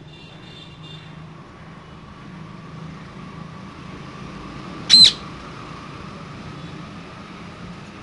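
A parakeet gives one short, loud, high-pitched call about five seconds in, over a steady low background hum.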